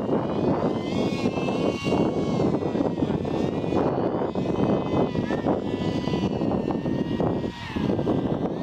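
Motor and propeller of a radio-controlled model paraglider running in flight, a whine that shifts up and down in pitch over a steady rushing noise, dipping briefly near the end.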